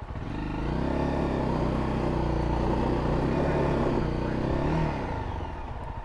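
Honda CRF250L dual-sport motorcycle's single-cylinder engine pulling up from low revs just after the start and holding steady at higher revs for about four seconds. It then rises briefly and drops back to a low, chugging idle about five seconds in.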